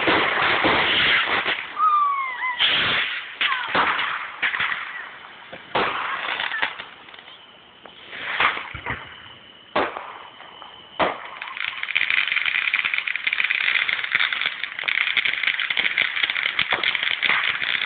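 Fireworks going off: a run of sharp bangs with a few short whistles in the first seconds, then from about eleven seconds in a dense, continuous crackling.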